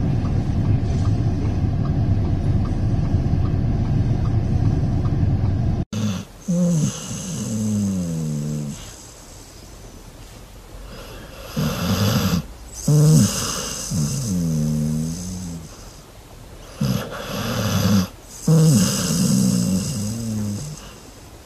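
A steady low rumble, then a sleeping pit bull snoring: about five long snores whose pitch wavers up and down, with short pauses between them.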